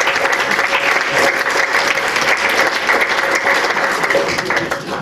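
Audience applauding steadily with many hands clapping, tapering off near the end.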